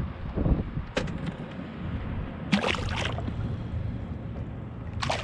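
Steady wind rumble on the microphone in an open fishing boat, with three short sharp noises, about one, two and a half, and five seconds in, the middle one the longest.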